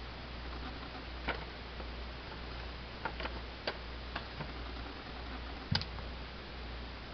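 A few scattered light clicks and taps from small electronic-cigarette parts and cards being handled on a table, the sharpest a knock about three-quarters of the way through, over a steady low hum.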